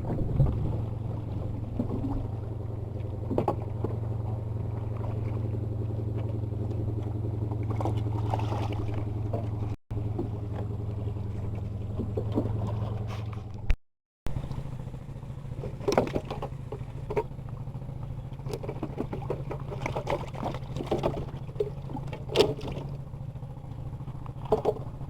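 Small boat engine running steadily as a low hum. After a short break in the sound, the hum continues alongside scattered knocks and clatter.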